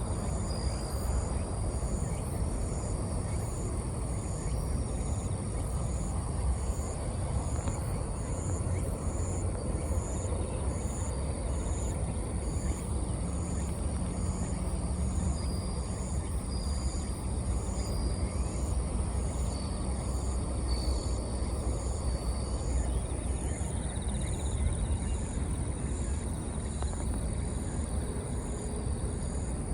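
Bell crickets singing: high ringing chirps repeating at an even pace, over a steady low rumble of background noise.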